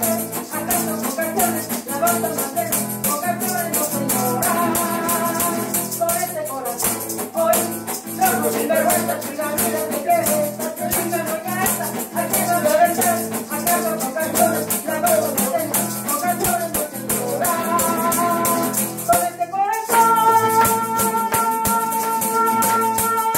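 Group singing to a strummed acoustic guitar, with maracas and a tambourine shaken in a steady rhythm. Near the end the voices and guitar hold a long final chord.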